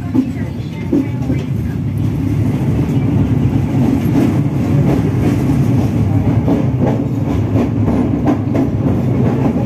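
Kahuripan passenger train running on the rails: a steady low rumble that grows louder over the first couple of seconds. From about four seconds in, the wheels clack repeatedly over the rail joints.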